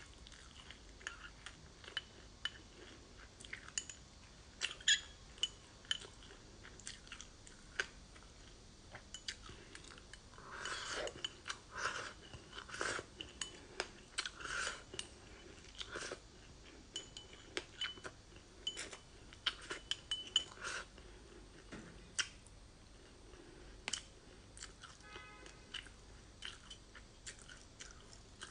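Close-miked crunching and chewing of frozen passion fruit and sesame seeds: many sharp crisp crunches, with a metal spoon now and then clinking against a glass bowl. A longer run of dense wet crunching and slurping comes around the middle, as she sips from the bowl.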